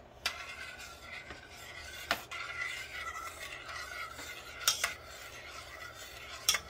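A spoon stirring a hot gelatin bait mixture around a stainless steel saucepan, scraping steadily, with four sharp clicks spread through.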